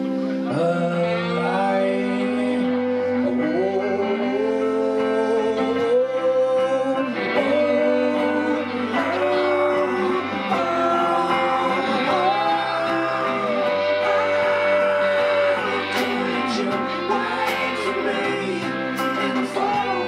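Live band playing a song on resonator guitar, electric guitar, bass guitar and drums, with a melody line that slides between long held notes over a steady bass part.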